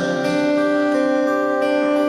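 Acoustic guitar playing steady held chords, with no singing.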